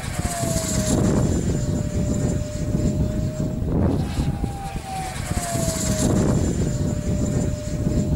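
F-35 fighter jet's F135 turbofan engine rumbling as it flies past, with a thin whine that falls in pitch about a second in and again about five seconds in.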